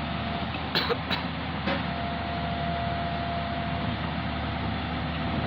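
Excavator's diesel engine running steadily, with a few sharp metallic clanks about a second in and a faint steady whine from about two seconds in.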